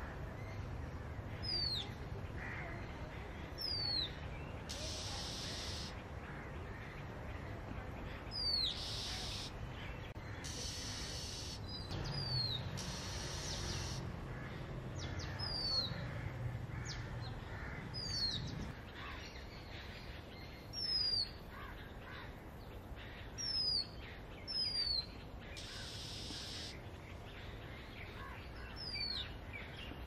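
Oriental magpie-robin singing: short, high whistles that slide downward, repeated every second or few, with several roughly one-second bursts of hissy, rasping notes between them. A steady low background rumble runs underneath.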